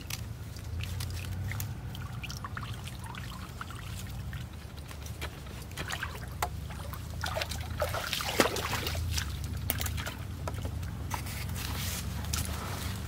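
Water trickling and dripping, with many small crackling clicks from a wet woven bamboo sieve basket and leaves being handled while a fish is taken out of it; the clicks are busiest about halfway through.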